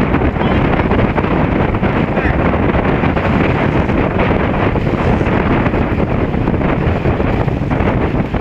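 Wind blowing hard across the microphone, a loud, steady rush of buffeting noise.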